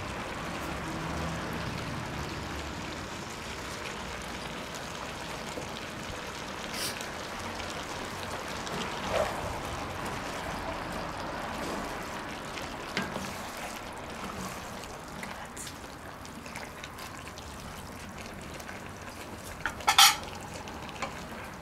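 Passata pouring from a carton into a hot cast-iron Dutch oven full of frying vegetables, then the sauce sizzling and bubbling steadily as it is stirred. A few short clicks come through, and one loud sharp clink near the end.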